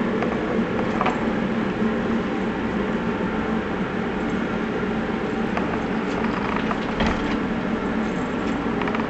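Steady mechanical hum and rush, with a few light knocks as a cat bats a feather wand toy against wooden cat steps.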